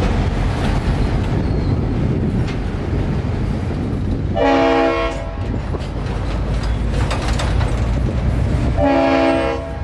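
Freight train rolling past with a steady low rumble of wheels on the rails, while the locomotive's horn, a Leslie RS5T five-chime, sounds two short blasts about four seconds apart.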